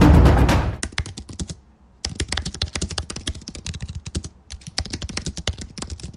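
Rapid typing on a computer keyboard: quick runs of plastic key clicks in bursts, broken by two brief pauses. The tail of loud intro music dies away in the first second.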